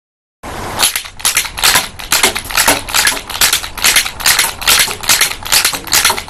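Wooden blowback rubber band pistol firing in rapid succession, its slide clacking back and forth at each shot. About three sharp wooden clacks a second, starting about half a second in.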